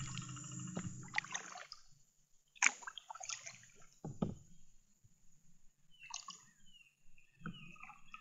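Kayak paddle strokes in shallow water: the blades dip and splash, with water trickling and dripping off them between strokes.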